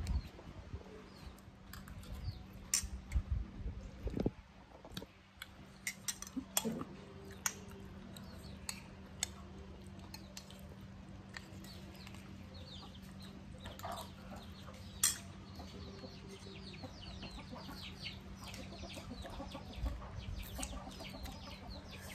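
Chickens clucking in the background, with scattered short calls that grow more frequent in the second half, over sharp clinks of a metal spoon against a glass bowl during a meal.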